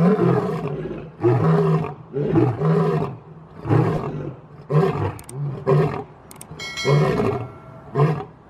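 Lion roaring: a bout of deep, grunting roar calls repeated about once a second, the early calls longer and the later ones shorter and clipped.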